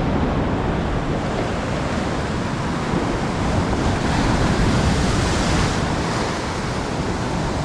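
Heavy surf breaking and washing on an ocean beach, with wind buffeting the microphone. A bigger wash of surf swells up about four seconds in and fades again.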